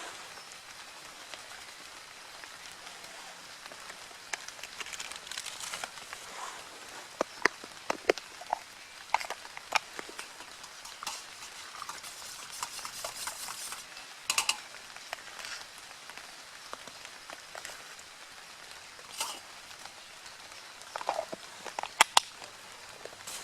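Steady rain pattering in woodland, with scattered sharp taps throughout.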